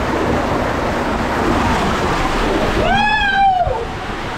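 Water rushing down an enclosed water slide tube as a rider slides through it, a loud steady rush. About three seconds in, a high-pitched yell rises and falls.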